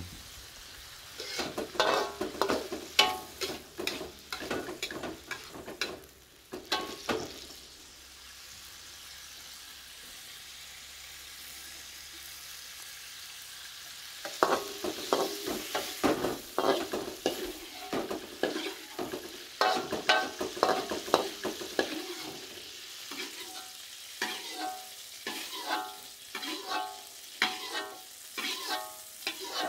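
A spatula scrapes and clinks against a stainless-steel wok as stir-fried spinach is stirred and scooped, over a steady oil sizzle. For several seconds in the middle the scraping stops and only the sizzle goes on.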